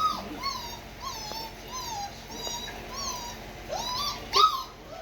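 Labradoodle puppies whining and yipping in a string of short, high, rising-and-falling cries, about two a second, louder near the end. They are crying for attention at the sight of their person.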